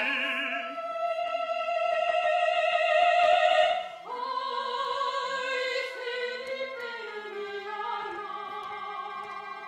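Operatic singing with vibrato over a small orchestra. A high note is held for about three seconds, then about four seconds in the line drops to lower notes that move more freely.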